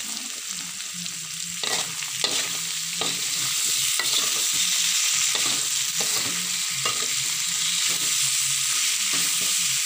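Tempe stir-fry sizzling in a metal wok, freshly coated in oyster sauce, while a metal turner stirs it, scraping and clicking against the pan. The sizzle grows louder about three seconds in.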